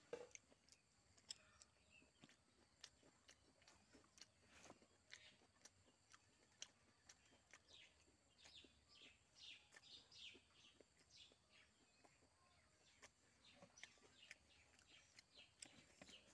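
Faint eating sounds: wet clicks from chewing and from fingers working rice and curry. From about halfway through, a bird calls in runs of short, high, falling notes.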